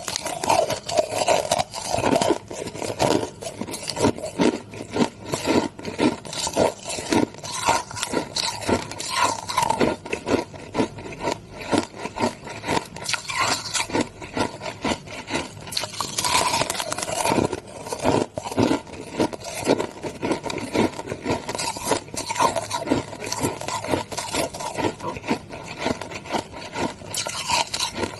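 Pink crushed ice being bitten and chewed, a dense run of crisp crunches several a second.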